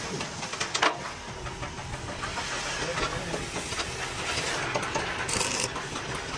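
Metal workshop noise: an irregular clatter of small knocks with one sharp clank about a second in, and a short hiss near the end.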